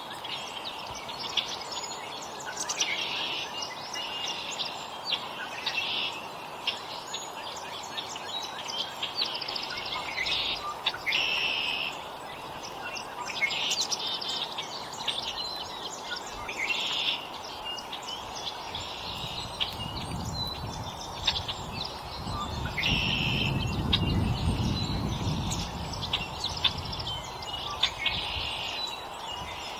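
Songbirds at a feeder calling over and over, each call short and buzzy, coming every second or two, with scattered small clicks in between. A low rumble rises under them about two-thirds of the way through.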